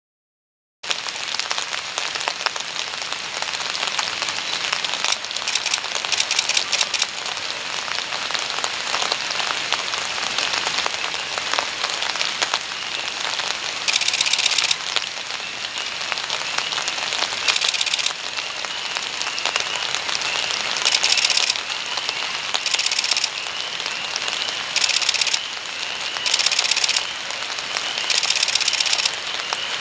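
Steady hiss of rain falling, after a brief dropout at the very start. From about halfway through, louder surges of hiss come every two to three seconds, with a faint wavering high tone under them.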